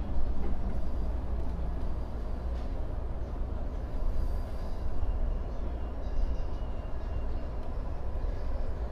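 E231-1000 series electric commuter train running, a steady low rumble heard from inside the front car, with a faint thin high tone for a few seconds midway.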